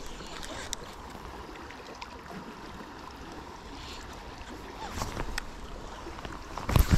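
River water running steadily, with a few light clicks. Near the end come several loud, low thumps.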